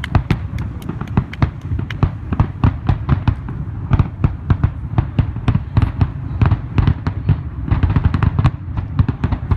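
Aerial fireworks shells bursting in a rapid barrage, several bangs a second over a deep rumble: the finale of a fireworks show.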